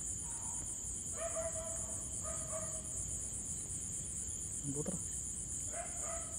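Crickets and other night insects chirping steadily in a high, fast-pulsing trill. A few brief pitched calls sound faintly in the background, about a second in, near two seconds and again near the end.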